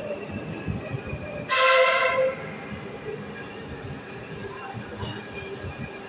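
Moskva-2020 metro train pulling into the station, with a low running rumble and a steady high whine, and one short horn blast about a second and a half in.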